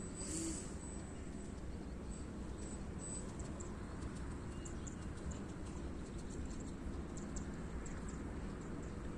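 Steady outdoor background noise, mostly a low rumble like wind on the microphone, with faint scattered high-pitched ticks and a brief rustle about half a second in.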